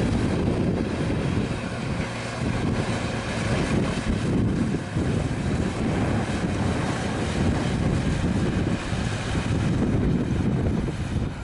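A vehicle running under way: steady, loud engine noise mixed with heavy wind noise on the microphone.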